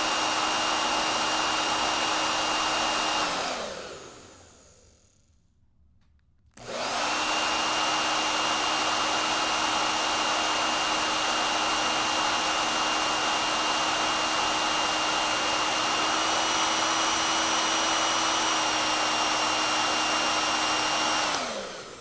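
Handheld hair dryer blowing with a steady whine. It is switched off about three seconds in and its motor winds down with a falling whine. A few seconds later it is switched back on and runs steadily, then it is switched off again near the end and winds down.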